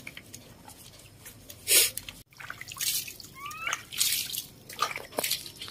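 Bath water splashing and dripping in several short bursts as a wet baby monkey is washed and lifted from a basin, with a short rising squeak about three and a half seconds in.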